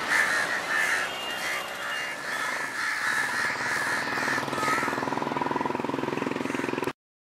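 Crows cawing repeatedly over the steady rumble of passing train coaches. About five seconds in a fast, even buzzing pulse takes over, and the sound cuts off abruptly just before the end.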